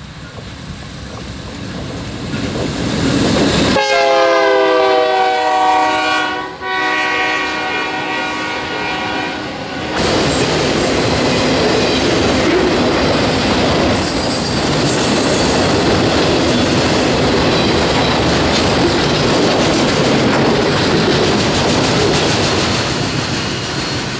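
Freight train approaching and passing close by: the locomotive's multi-tone air horn sounds two long blasts, then the cars roll past with a steady rumble and wheel clatter on the rails.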